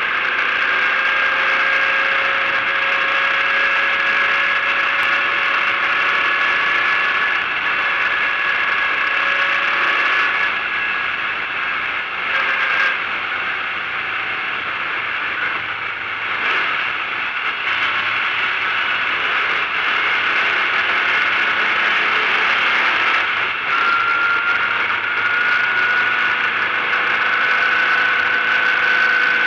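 Race-prepared Volkswagen Fusca (Beetle) air-cooled flat-four engine running at speed on a circuit, heard from inside the stripped cabin. The engine note climbs slowly, dips and wavers about eleven to thirteen seconds in, then drops about twenty-four seconds in and starts climbing again.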